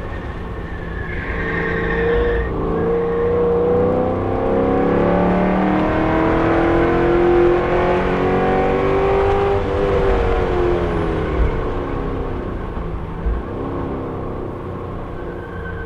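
Camaro SS 1LE's V8 heard from inside the cabin, accelerating hard with the revs climbing steadily for about eight seconds, then dropping as the car lifts off. Two brief thumps come near the end, over steady road and wind noise.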